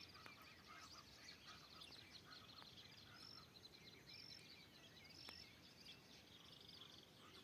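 Faint dawn chorus of forest birds: many small chirps and twitters, with a short high whistle repeated four times and a buzzy trill near the end.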